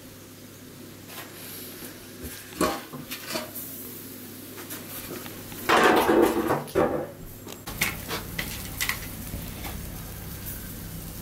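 Cookware and utensils being handled: scattered knocks and clinks, with a louder noisy burst about six seconds in.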